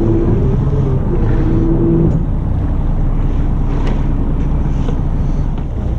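Fishing boat's engine running with a steady low rumble and wind noise on the microphone; a humming tone over it stops about two seconds in.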